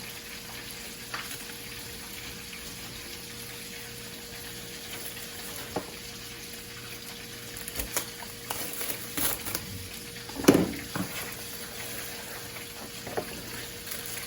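Food frying in a pan, a steady sizzle. Between about eight and eleven seconds in, a run of crinkling, rustling strokes comes through as a dish is covered with wrap, with one sharp knock about ten and a half seconds in.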